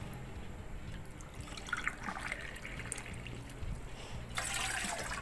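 Water poured from a ceramic mug into a stainless-steel saucepan, trickling and splashing on the metal. The loudest part is a fresh cupful poured in near the end.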